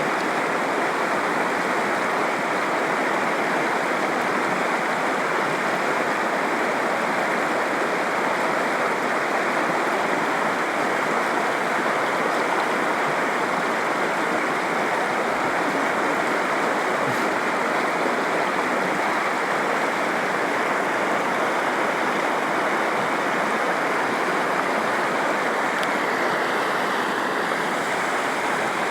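Swollen hill stream in flood, its water rushing steadily: the stream is in spate after a day of on-and-off rain.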